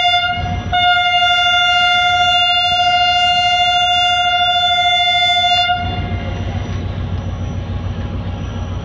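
Horn of a Pakistan Railways HGMU-30 diesel-electric locomotive: a short toot, then one long steady blast of about five seconds on a single note, sounded as the train departs. The locomotive's diesel engine runs underneath and carries on alone after the horn stops near the middle.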